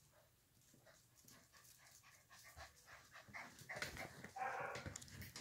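Young puppies play-wrestling: faint scuffles and small clicks, growing louder, with a short puppy vocal sound about four and a half seconds in.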